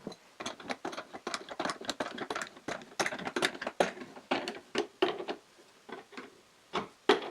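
Rapid, irregular clicks and light knocks, several a second, thinning out near the end, from hardware and a wooden block being handled and fastened to a metal drill press column.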